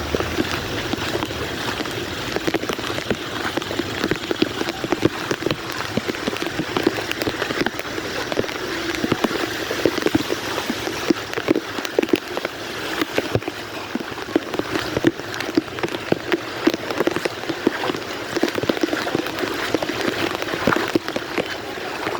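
Heavy rain falling steadily, a dense patter of drops hitting a surface.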